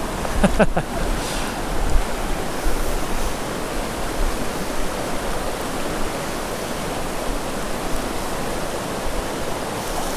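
Small mountain creek rushing steadily over rocks, with a brief pitched sound about half a second in.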